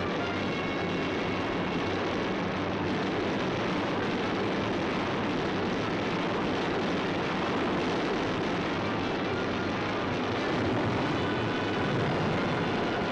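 Piston aircraft engines running in a steady, dense drone that swells slightly near the end, on an old film soundtrack.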